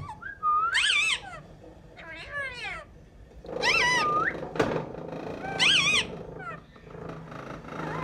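Male rose-ringed parakeet calling: a string of about five short, high-pitched, wavering calls, each under a second, sliding up and down in pitch, with short pauses between them.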